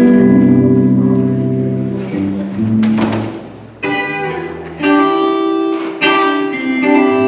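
Instrumental music: held chords over low bass notes, then fresh chords struck about once a second from about four seconds in.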